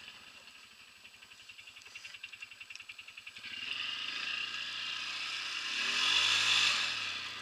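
ATV engine running low with an even, fast putter, then opening up about three and a half seconds in. It revs with the pitch rising to a peak and falling back near the end as the throttle eases.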